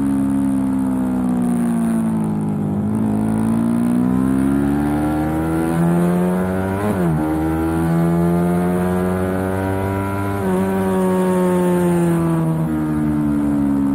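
Suzuki sport motorcycle's engine heard from on the bike while riding hard on a track. The revs fall, then climb steadily, flick up and drop sharply about seven seconds in, hold, and fall away again near the end.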